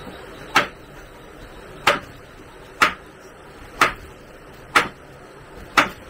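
Six sharp knocks at an even pace of about one a second.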